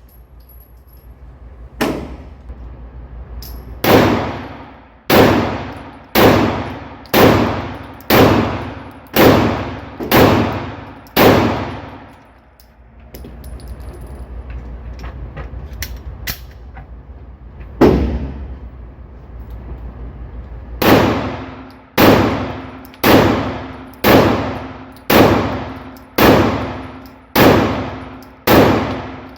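Glock 17 pistol fired at a steady pace, about one shot a second, each report followed by a long ringing decay. One string of about nine shots comes first, then a lone shot, then another string of about eight.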